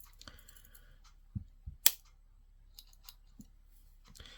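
Small metallic clicks from handling the tools of a Victorinox Pioneer X Alox pocket knife, working its scissors and folding tools against their springs. About eight short clicks with faint handling rustle, the sharpest about two seconds in.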